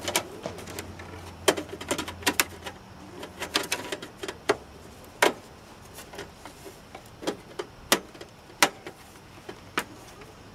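Irregular sharp clicks and taps of plastic parts and wiring being handled at a scooter's rear body panel, about a dozen of them at uneven spacing.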